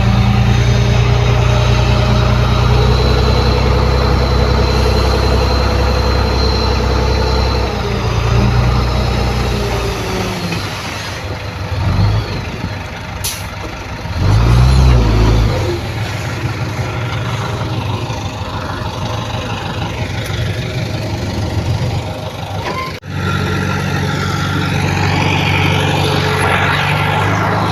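Heavy machinery engines running with a deep, steady drone that weakens about eight seconds in. A short louder surge comes around the middle, and there is a brief sudden dropout near the end before the drone returns.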